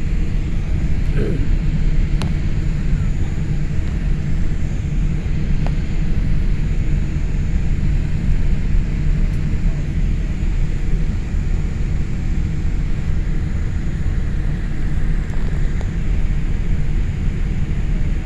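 Boeing 787 heard from inside the cabin: a steady, loud low rumble of engine and airflow noise with no rise or fall.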